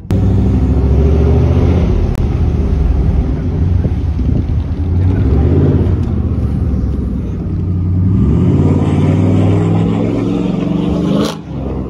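Pickup truck's engine and exhaust running loud inside the cab, accelerating hard, its pitch rising and falling; the sound drops sharply about eleven seconds in.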